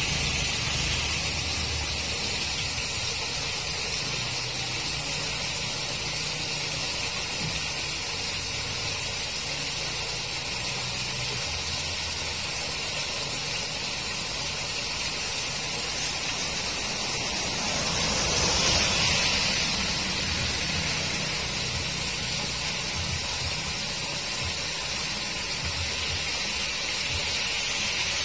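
Muddy rainwater gushing steadily through the steel-rod grate of a concrete road culvert, growing louder for a moment about two-thirds of the way in.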